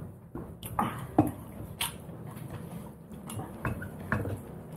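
Close-up eating sounds: a drink of water swallowed from a small glass, the glass set down on the table, then fingers mixing rice and mutton curry on a plate. Several sharp clicks and knocks, the loudest about a second in.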